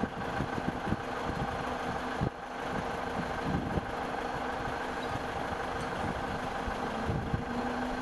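Steady engine-like machinery hum, dropping briefly about two seconds in.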